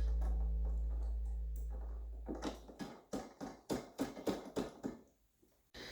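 Acoustic guitar background music fading out, followed by a quick run of about ten light clicks and taps, roughly four a second, over about two and a half seconds.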